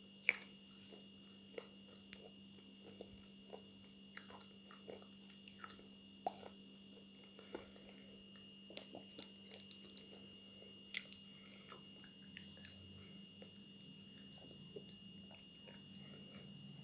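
Someone biting and chewing brittle baked clay pieces (edible slate pencil) close to the microphone: a sharp crunch just after the start, then softer scattered crunches every second or so. A faint steady hum runs underneath.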